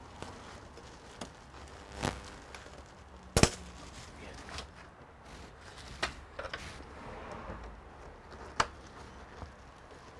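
Scattered sharp clicks and knocks of hard plastic and metal computer parts and tools being handled during disassembly of an all-in-one PC. The loudest knock comes about three and a half seconds in, with others near two, six and eight and a half seconds.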